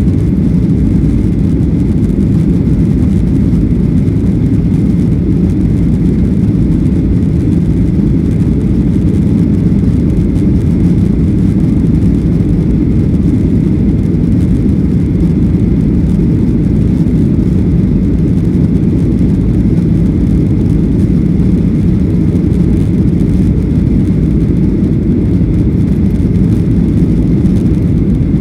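Steady low rumble of a Boeing 737-800's jet engines and rushing air, heard from inside the passenger cabin, with a faint steady whine above it.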